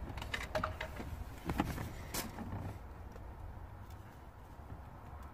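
A few light clicks and handling noises from a small plastic SRS wiring connector being worked in the fingers, over a low steady background rumble.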